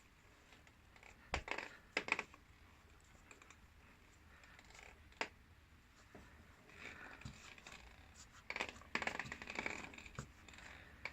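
Clicking and scratchy creaking from a Kawasaki VN750's final drive: a few sharp clicks in the first half, then longer scraping creaks later on. The noise comes from the rubber damper where rubber and metal meet, running dry until a little grease is applied.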